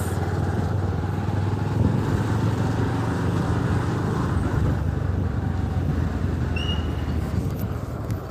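A road vehicle's engine running steadily, with a brief high chirp about six and a half seconds in.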